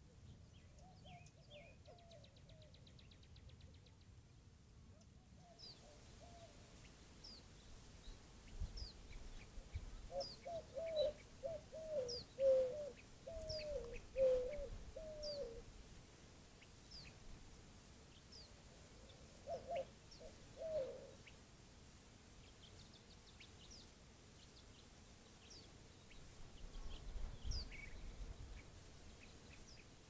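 White-winged dove cooing in phrases of several hooked low notes, loudest around the middle and again briefly later. A small bird gives a short high chirp about once a second throughout.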